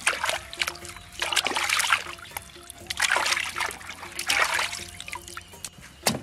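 Water splashing and sloshing in a steel basin as hands scrub raw pork knuckles, in several surges, over background music. A short thump near the end.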